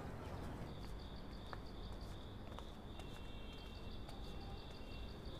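Crickets chirping in a steady, high-pitched trill, over a low background rumble.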